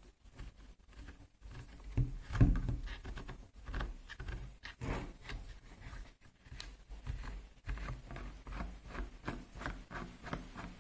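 Plastic screw cap of an engine oil bottle being twisted off by hand: a run of short rasps and clicks as the cap turns on its thread, loudest about two seconds in. There is no seal to break under the cap.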